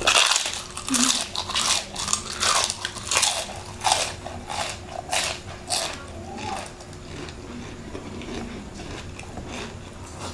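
Loud, close crunching of deep-fried crispy chicken skin being bitten and chewed: a quick run of sharp crunches for about the first six seconds, then softer chewing.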